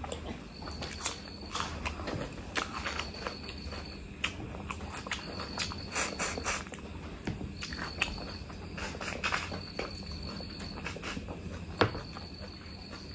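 Close-miked eating of mutton curry: irregular wet chewing and lip-smacking clicks, with one sharp loud smack near the end. A thin high-pitched trill comes and goes in the background in stretches of about a second.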